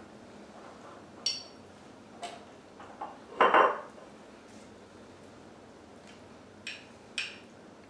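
Metal forks clinking and scraping against ceramic bowls during eating: scattered short clinks, a few with a bright ring, and one louder scrape about halfway through.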